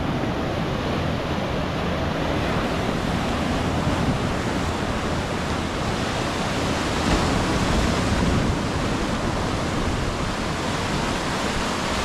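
Sea waves breaking on a sandy beach: a steady, even rush of surf, with some wind on the microphone.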